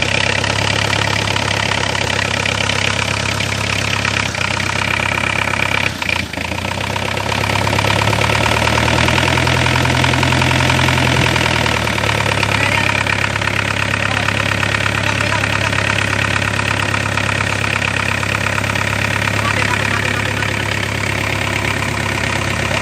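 Mitsubishi L300 four-cylinder diesel engine test-running at idle, steady, with a brief dip about six seconds in and a slight rise in engine speed for a few seconds after it.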